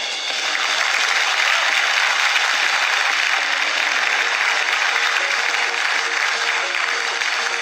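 Audience applauding on a live music recording, a dense steady clapping, with faint instrument notes coming in during the second half.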